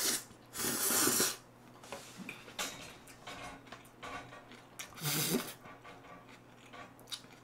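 A man slurping a mouthful of black-bean instant noodles off chopsticks, loudly once about half a second in, then chewing quietly, with a brief low vocal sound from him around five seconds in.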